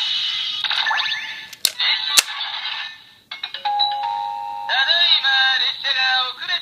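A toy's small built-in speaker playing electronic sound effects: a jingle, a couple of sharp clicks, a few steady electronic tones, then a tinny recorded voice call.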